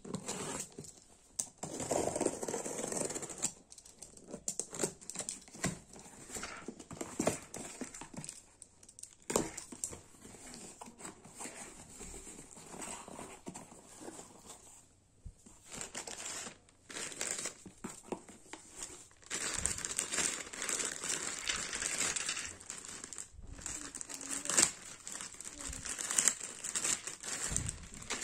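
Cardboard parcel being unpacked by hand: a box cutter slitting the packing tape and the cardboard flaps being pulled open, with scattered knocks and scrapes. Then a black plastic poly bag crinkles as it is pulled out and handled, loudest in the last third.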